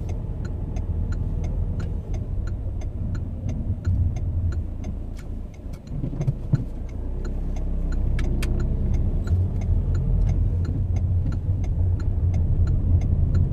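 Car engine and tyres rumbling, heard inside the cabin while driving slowly. Over it, the turn-signal indicator ticks steadily, about three clicks a second. The engine note dips and picks up again about halfway through.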